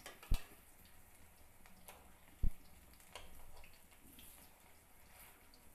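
Moringa-leaf fritters frying in hot oil on a high flame, a steady sizzle. A metal spatula clacks against the black kadai a few times as the fritters are turned, twice sharply.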